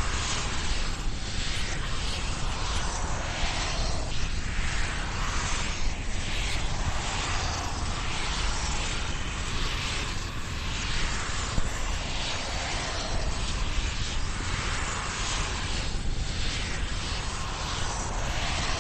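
Horror 'demonic recording' sound effect: a dense, steady rumbling drone overlaid with hissing washes that swell and fade every second or two.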